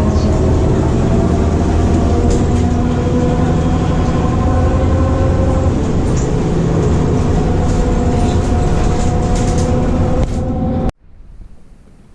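Loud, steady low rumble of a moving vehicle with a faint steady whine over it, cutting off abruptly near the end.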